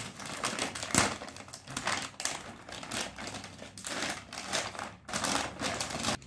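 Thin plastic bag crinkling in irregular crackles as it is pulled open, with the small plastic connectors inside shifting against it.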